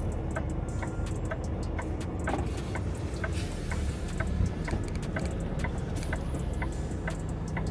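Semi truck's diesel engine running low and steady, heard from the cab, with a flasher relay clicking at an even pace of about two to three ticks a second.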